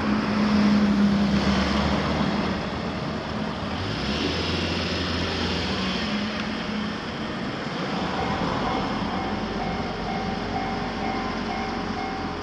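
Noise of a passing vehicle, loudest in the first two seconds. About eight seconds in, a Japanese railway level crossing's electronic warning bell starts, ringing in a steady repeating ding about one and a half times a second, signalling that a train is approaching.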